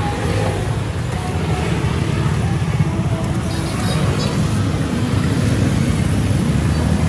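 Steady, loud low rumble of street traffic and engines, with faint voices mixed in.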